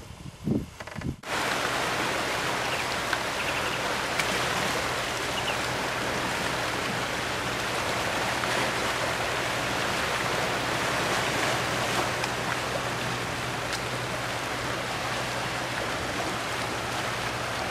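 Steady rush of choppy sea water washing around coastal rocks, cutting in abruptly about a second in, with a faint low hum underneath.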